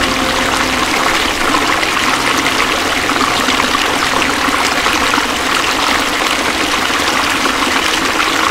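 River rapids: fast white water rushing over and around boulders, a steady, even rush of water.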